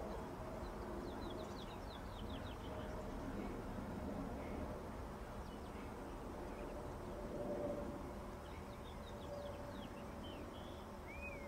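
Small birds chirping in two bursts of quick downward-sweeping notes, with a short rising-and-falling call near the end. Under them runs a steady low rumble from a jet airliner passing high overhead on approach.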